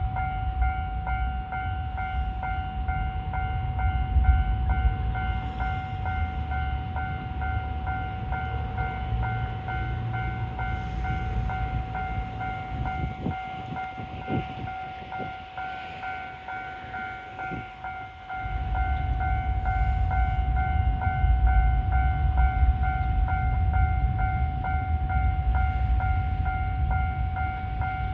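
Japanese level-crossing alarm ringing its repeated electronic "kan-kan" bell over a train's low rumble; the rumble drops away for a few seconds about halfway through, then returns.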